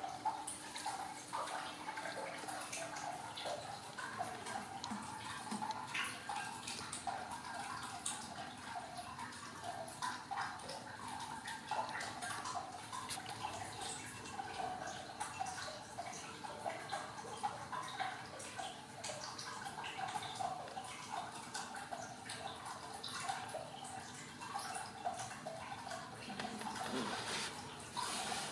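Newborn Ragdoll kittens suckling: wet, irregular smacking and little clicks, going on throughout.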